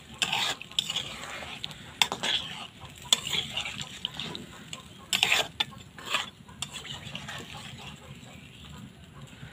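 Metal spatula stirring chicken curry in a black wok, scraping and knocking against the pan at irregular moments, loudest about five seconds in, over the steady sizzle of the cooking gravy.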